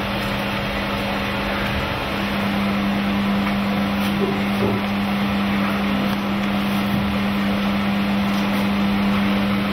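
Electric centrifugal honey extractor running, a steady motor hum with one low tone that strengthens slightly about two seconds in, as the spinning frames throw the honey out of the combs.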